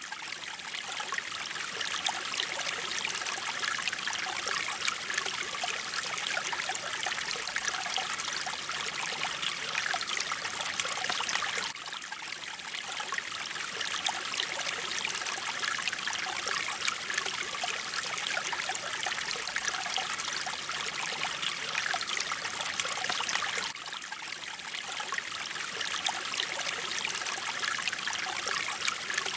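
Mountain stream water flowing and trickling in a steady, even rush, dipping briefly in level about every twelve seconds.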